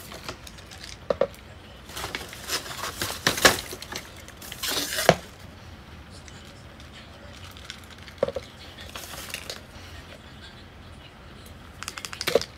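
Dishes and cutlery being handled: scattered clinks and knocks, a few with a short ring. Two louder rustling bursts come a few seconds in.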